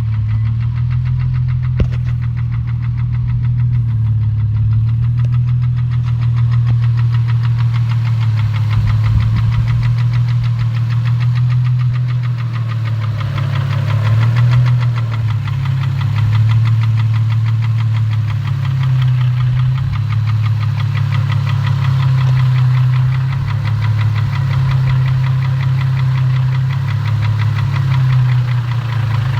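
2004 Infiniti G35's 3.5-litre V6 idling roughly, its note wavering up and down, with a rapid, steady knocking running through it, which the owner takes for rod knock.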